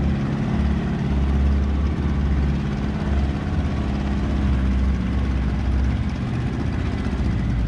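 Outboard motor driving a small fibreglass fishing boat under way, a steady low drone with an even hiss of wind and water over it.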